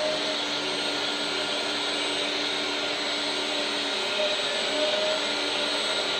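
Electric hydraulic pump and motors of a 1/14-scale LESU Komatsu PC360 RC excavator running, a steady whirring hiss with a faint hum underneath.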